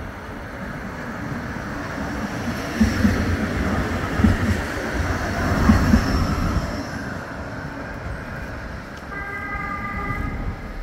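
Bombardier Flexity 2 tram passing close by on street track: a rumble that builds and fades, with three heavy thumps about a second and a half apart as it goes past. A steady pitched tone sounds for a second or two near the end.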